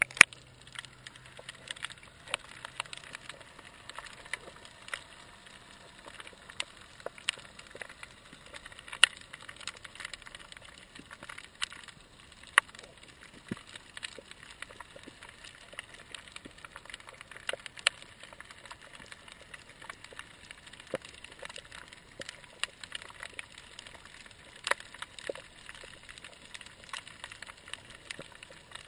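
Underwater sound picked up through a camera's waterproof housing: faint hiss with scattered sharp clicks and crackles at an irregular pace, a few louder snaps among them.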